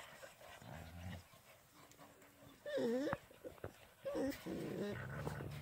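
Dutch Shepherd puppies play-fighting with their mother: quiet low growls, and two short whines about three and four seconds in.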